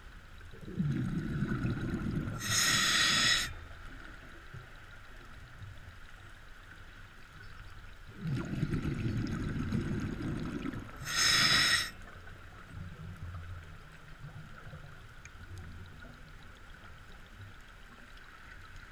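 Scuba diver breathing through a regulator underwater: exhaled bubbles rumble for two or three seconds, then the regulator hisses sharply on the inhale. This breathing cycle comes twice, about eight seconds apart, with a weaker exhale after the second one.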